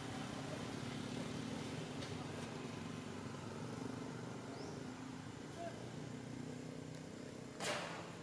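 Low steady hum of a motor vehicle engine running. A short burst of noise comes near the end.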